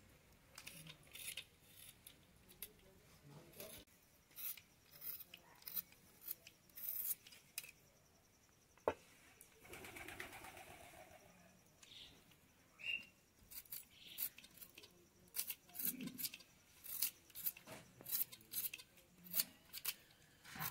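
Irregular crisp strokes of a blade cutting and peeling by hand, as chicken meat and vegetables are cut up, with one sharp knock about halfway through.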